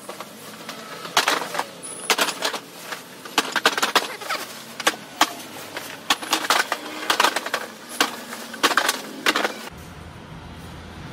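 Sharp clacks and rattles of hard objects, in irregular clusters about every second, stopping near the end, where a steady low hum takes over.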